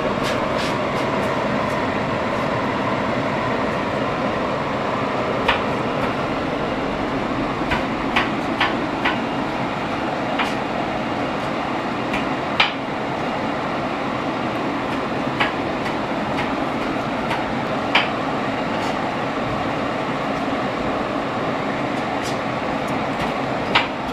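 Scattered light clicks and taps of a metal spoon against a plate and a stainless steel steamer basket as siomai dumplings are set into it one by one, over a steady rushing noise.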